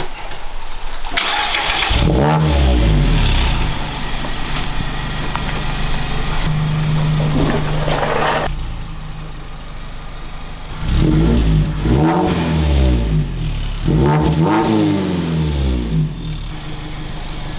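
Mazda ND Miata's four-cylinder engine, breathing through newly fitted Hooker headers and an HKS exhaust, revved up and down several times with idling in between.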